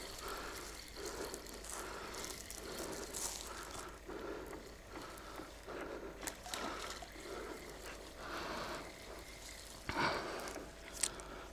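Spinning reel being wound in repeated turns as a hooked trout is played in toward the bank, with a splash about ten seconds in as the fish breaks the surface.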